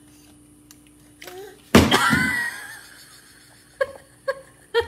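A young child's loud, high-pitched shriek a little under two seconds in, lasting under a second, followed near the end by a few short vocal sounds.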